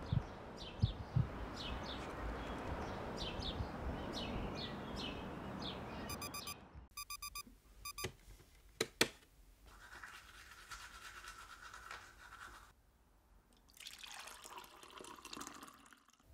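Birds chirping repeatedly over a steady background hiss, then a digital alarm clock radio beeping in quick pulses, in short groups, stopped by a few sharp clicks as a hand hits it. Two stretches of soft rustling noise follow.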